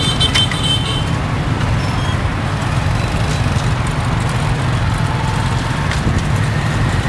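Steady road traffic noise with a low wind rumble on the microphone while riding a bicycle through town.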